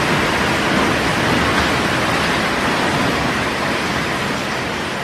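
Steady hiss of a heavy storm downpour, dense and even with no separate impacts, beginning to fade near the end.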